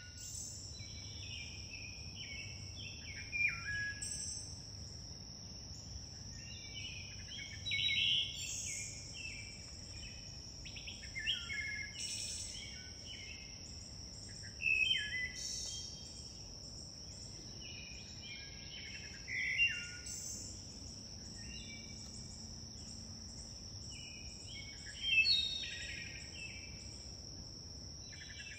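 Woodland ambience: an insect's steady high-pitched buzz runs throughout, with songbirds singing short phrases every few seconds over it.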